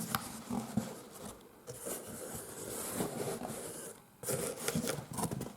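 Cardboard shipping box being opened by hand: irregular scraping, tearing and rustling of cardboard and packing, with a louder burst about four seconds in.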